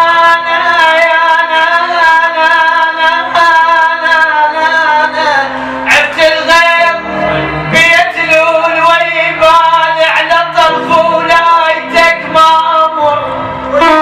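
Music from a live Arabic mawwal performance: a held melodic instrumental line, with a voice singing in bending, ornamented phrases from about six seconds in over sharp percussive clicks.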